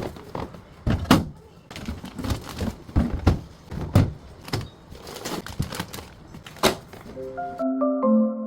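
Irregular knocks and clunks of containers and trays being handled and set into a refrigerator. Light mallet-percussion music comes in near the end.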